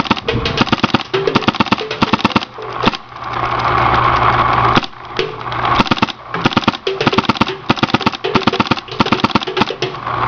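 Autococker Trilogy Pro select-fire paintball marker firing rapid strings of shots in ramping mode, set to about 18 balls a second. It goes in several bursts of fast pops, the longest about two to three seconds, with a steady hum in the short gaps between strings.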